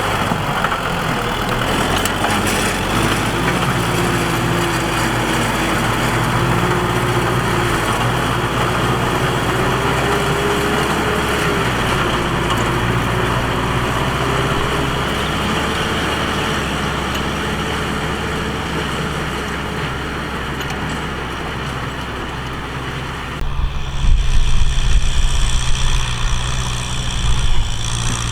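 Tractor engine running steadily, with a wavering mid-pitched whine over the engine note. About 23 seconds in, the sound changes abruptly to a louder, uneven low rumble.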